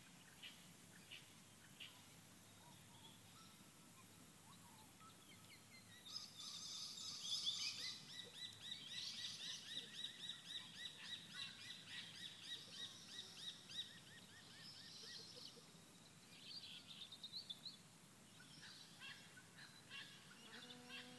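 Birds calling outdoors: faint high chirps at first, then a busy run of rapid repeated chirping from about six seconds in that fades after about fifteen seconds, with occasional calls after that.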